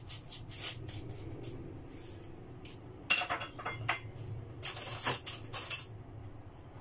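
Kitchen utensils and crockery clattering: two bursts of metal-and-ceramic clinking, the first about three seconds in and the second about a second and a half later, as a spoon is fetched from among the dishes.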